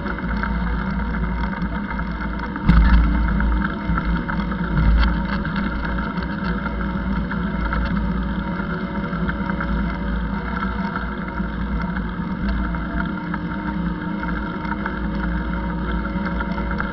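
Steady low rumble of wind and road noise on the microphone of a camera moving along a bike path, with a sudden louder jolt about three seconds in and a smaller one a couple of seconds later.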